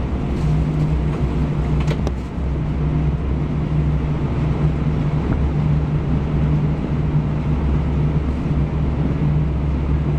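Steady low drone of airliner cabin noise inside an Airbus A319 on the ground before takeoff, with a couple of faint clicks about two seconds in.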